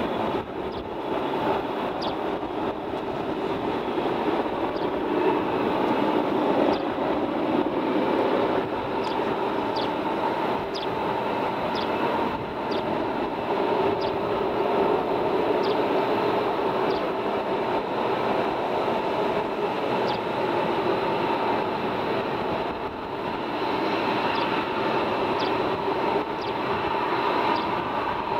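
Distant jet aircraft engines running steadily, a continuous rumbling roar with faint high ticks about once a second.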